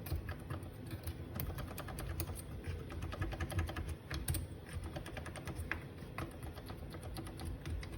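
Small clicks and scratches of hand cleaning inside a Breville Smart Grinder, working loose the coffee grounds left under the grinding blade: a rapid, irregular run of light ticks.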